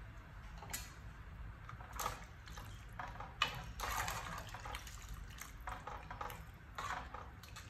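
Metal ladle stirring a stainless steel pot of soup: irregular sloshing and swishing of the broth, with a sharp clink of the ladle against the pot about three and a half seconds in.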